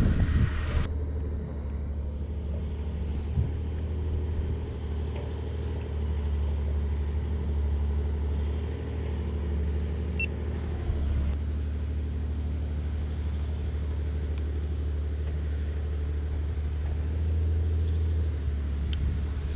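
Steady low rumble of a distant JCB digger's diesel engine running.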